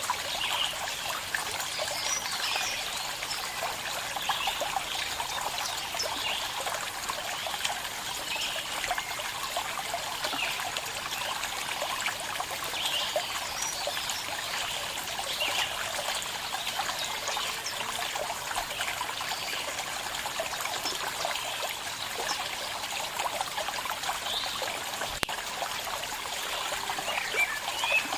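Small stream of water trickling and splashing steadily over stones.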